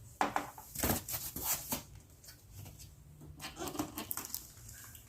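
Hands handling the air purifier's plastic housing and filter: irregular clicks, taps and rustles for the first couple of seconds, then another cluster a little past three seconds in.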